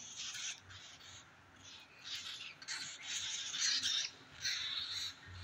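Two cockatiels squabbling beak to beak, giving about five harsh, hissing squawks in short bursts, the loudest a little past the middle.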